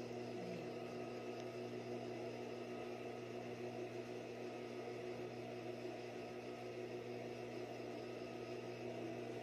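Faint steady hum with a light hiss and no distinct events: background room tone.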